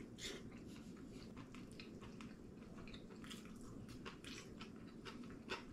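Faint chewing of a mouthful of braised chicken, with many short wet mouth clicks and smacks and a slightly sharper click near the end.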